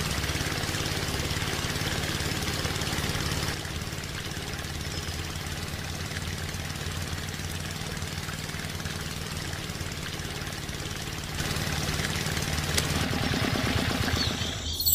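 Small electric motor running steadily, turning a miniature belt-driven water pump: an even hum with a fast whir. It gets a little quieter a few seconds in and louder again near the end.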